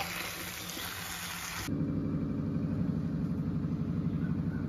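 A steady hiss, with faint stirring sounds from the clay pot, cuts off abruptly about a second and a half in and gives way to a steady low machine hum.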